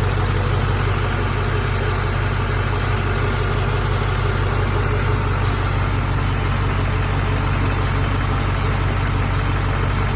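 GM LB7 Duramax 6.6-litre V8 turbodiesel idling at a steady pitch and level, its idle rough, the fault this truck is showing along with hard starting.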